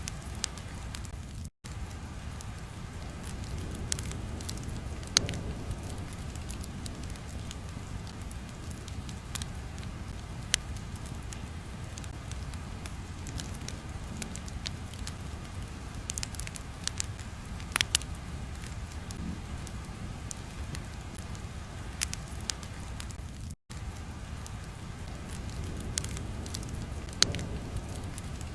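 Crackling fire ambience: a steady low rumble with sparse, irregular sharp pops, cutting out for an instant twice.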